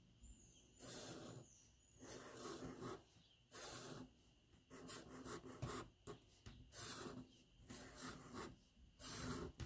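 Black Sharpie marker drawing lines on paper: a series of faint, short rubbing strokes, about one a second, as a pattern of wavy and straight lines is drawn.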